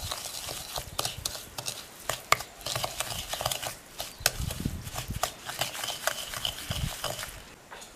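Wooden spatula scraping and knocking against a glass bowl while creaming softened butter and sugar, an irregular run of short scrapes and clicks that stops shortly before the end.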